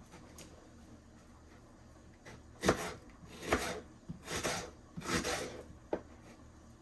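Kitchen handling sounds during vegetable prep: after a quiet start, a sharp knock, then three short rustling, scraping sounds and a small click.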